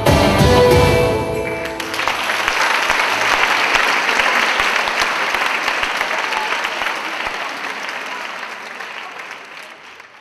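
Belly dance music ends about two seconds in, and the audience applauds, the clapping slowly fading away toward the end.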